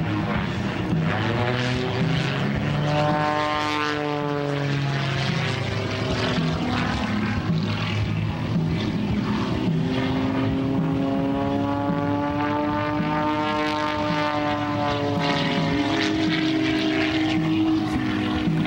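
Pitts S-2S aerobatic biplane's piston engine and propeller running hard through an aerobatic routine, the note swinging up and down twice as the plane swoops and manoeuvres, and stepping higher near the end.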